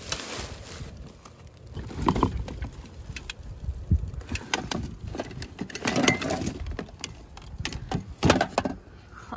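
Gloved hands rummaging through trash in a dumpster: plastic garbage bags rustling and crinkling, with knocks and clatter of objects being shifted, in irregular bursts that are loudest about six and eight seconds in.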